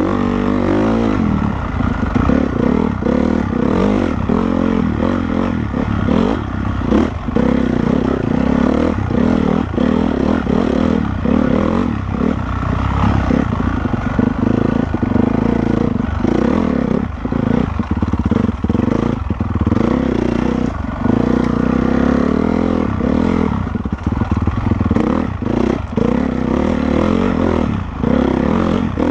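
Honda CRF450R's single-cylinder four-stroke engine being ridden hard off-road. The engine note rises and falls as the throttle is worked, with many short, sudden dips and some clatter.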